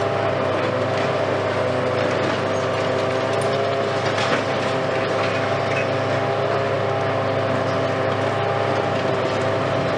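Hitachi Kiesel KMC520 high-reach demolition excavator running steadily, its engine and hydraulics giving a constant hum with a steady whine over it. A brief impact comes about four seconds in as the demolition tool works the concrete.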